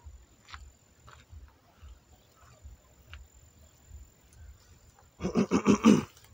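An animal's call near the end, loud and pulsing, lasting about a second; before it only a faint low rumble.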